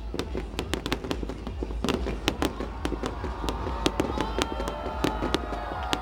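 Fireworks display: a dense run of sharp crackles and pops, several a second, over a steady low rumble. Faint wavering whistle-like tones come in about halfway through.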